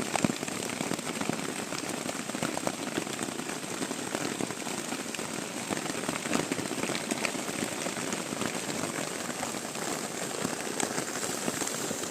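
Downpour at night: heavy rain falling steadily, with a dense patter of drops striking close by.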